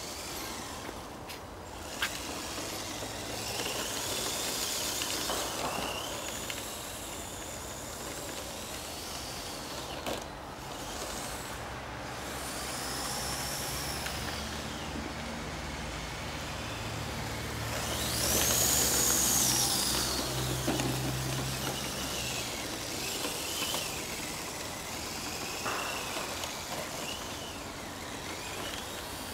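Small radio-controlled 6x6 pickup truck's electric drive motor and gears whining, the pitch rising and falling several times as the throttle is worked. It is loudest about two-thirds of the way through.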